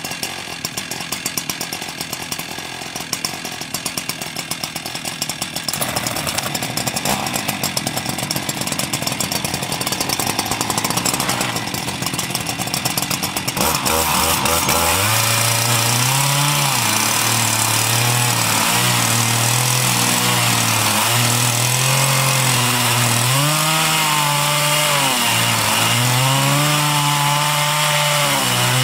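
Two Husqvarna 395 chainsaws on a double-ended Alaskan chainsaw mill, first running slowly with a fast uneven beat, then opened up about halfway through and run hard as they cut through the log. Their pitch dips and recovers again and again under the load of the cut.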